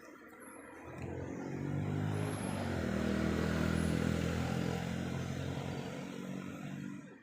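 A motor vehicle driving past, its engine humming steadily: it builds up from about a second in, is loudest near the middle, and cuts off sharply near the end.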